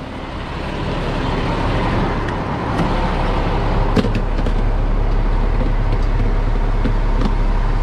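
Peterbilt 337 tow truck's diesel engine idling; its low hum grows heavier about three seconds in as the cab is entered, with a sharp click about four seconds in.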